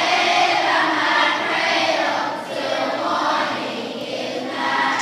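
A choir of fourth-grade children singing together.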